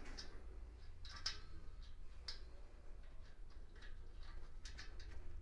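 Faint, irregular light metal clicks and taps from hands working on the Jaguar 5.3 L V-12 block's rear main bearing cap and its fasteners, over a faint low hum.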